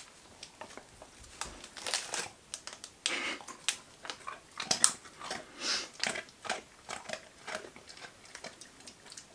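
A dog crunching and chewing small, firm beef chew-heart treats taken from a hand, with irregular crunches throughout.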